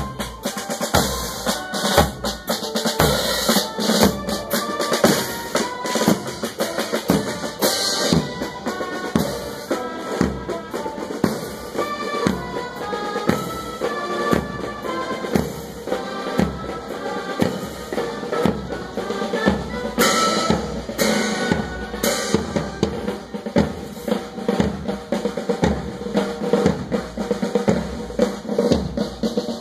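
Military marching band playing a march: bass drums and snare drums keep an even beat of about two strokes a second, with brass playing a melody over it. A few loud bright crashes come about two-thirds in.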